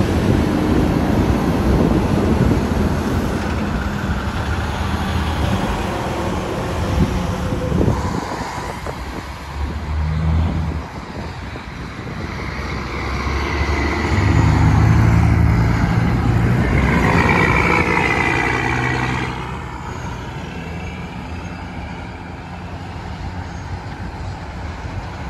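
Diesel engines of semi trucks running as the rigs pull away and pass one after another. The loudest pass builds from about halfway through, its engine pitch climbing as it accelerates, then eases off near the end.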